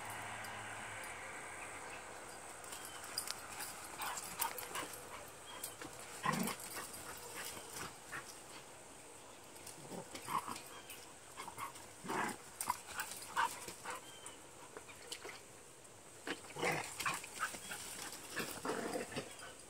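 Two dogs vocalising in short, scattered bursts as they wrestle and chase in play.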